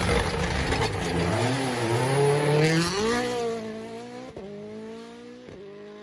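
Rally car passing close at speed with a loud rush of engine and tyre noise, then accelerating away, its engine note climbing steadily in pitch as it fades. Two short, sharp cracks come in the second half.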